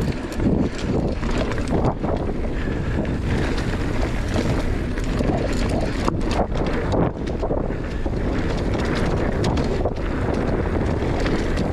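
Steady wind rushing over the microphone of a camera on a moving mountain bike, mixed with the rumble of the tyres rolling over a dirt trail.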